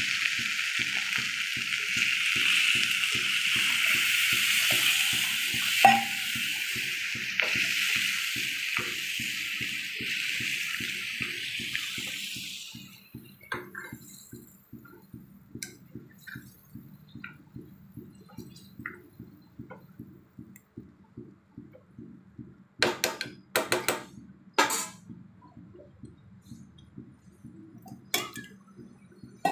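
Water pouring steadily into a pan of prawn masala, stopping about 13 seconds in. After that a few sharp clinks of a utensil against the pan stand out, over a faint regular ticking.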